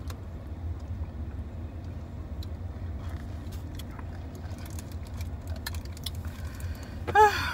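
Car cabin noise while driving: a steady low rumble from the engine and tyres, with a few faint clicks. Near the end a person makes one brief, loud voiced sound.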